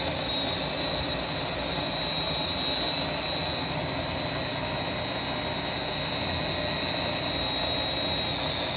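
Small electric mini food processor running steadily with a high motor whine, its blade churning a thick paste of walnuts, garlic, olive oil and navy beans.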